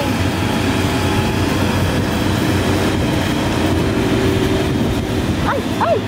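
Kubota DC-70 Plus combine harvester running steadily while cutting and threshing rice: a loud, dense mechanical din with a steady hum in it that drops away about five seconds in. A brief high call is heard near the end.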